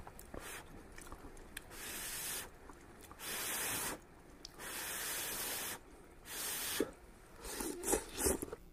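A person blowing on steaming hot noodles to cool them: four long, hissing breaths about a second apart. Near the end, short slurping mouth sounds as the noodles go into the mouth.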